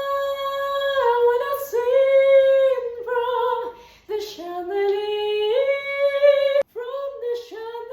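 A woman singing unaccompanied in head voice, holding long notes in a high-middle range that step up and down a little, with a couple of short breaks.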